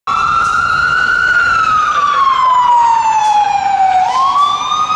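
Fire truck siren wailing: the pitch climbs slightly, slides slowly down for a couple of seconds, then sweeps quickly back up about four seconds in.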